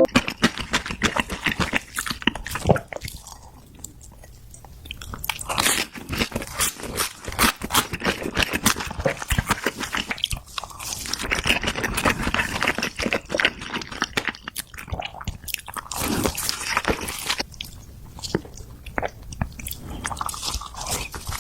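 Close-miked eating of dumplings: biting and chewing with many quick, irregular mouth clicks and smacks. It eases off briefly about three to five seconds in.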